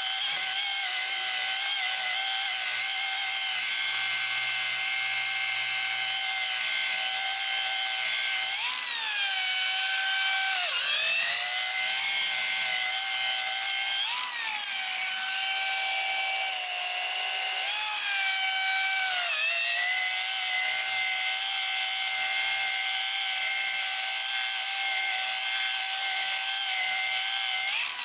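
Metabo 5-inch variable-speed direct-drive angle grinder, fitted with a sanding disc and dust shroud, sanding repair plugs flush on a Corian solid-surface countertop with a steady high whine. Several times the pitch dips as the disc is pressed into the work and then climbs back, and at the very end it starts to wind down.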